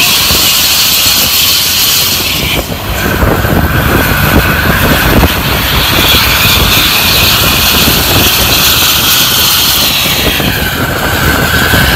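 ANS bus's aftermarket 'srigala' (wolf) exhaust running hard with a loud, jet-like high whine over a steady rumble; the whine cuts out briefly about two and a half seconds in, then comes back.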